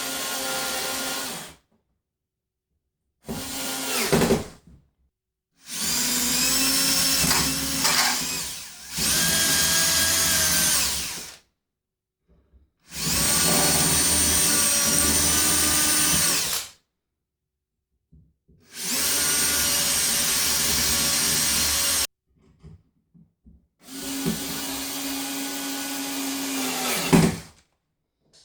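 Power drill run in about six short bursts of two to four seconds each, holding a steady pitch within each burst, with silent pauses between; the last burst grows louder and ends sharply, as while fitting new door handles.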